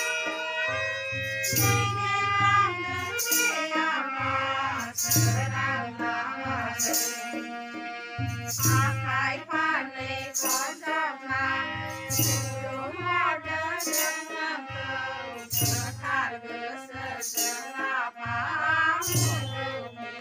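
A group of women singing a Bodo devotional hymn together, with a drum and jingling percussion keeping a slow, steady beat.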